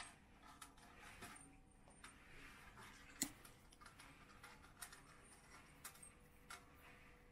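A cat licking its lips close to the microphone: faint, scattered wet mouth clicks, with one sharper tap about three seconds in.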